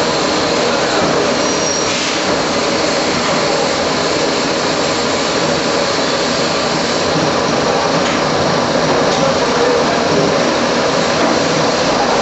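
Traub-type A25 automatic lathes running, turning valve guides with automatic loading and ejection: a steady, loud mechanical noise.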